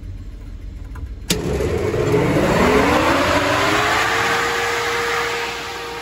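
A motor-driven machine at a grain bin is switched on with a sharp click about a second in and spins up. Its hum rises in pitch for about three seconds, then holds steady over a loud, even rushing noise.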